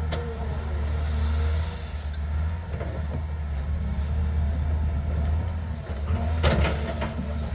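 A large engine runs with a steady low rumble, typical of a truck or heavy machine. About six and a half seconds in comes a short burst of clatter.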